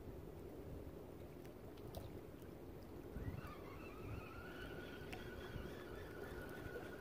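Steady low rumble of wind and water around a small fishing boat, with a few low knocks. About three seconds in, a steady high whine joins, dipping briefly in pitch before holding level.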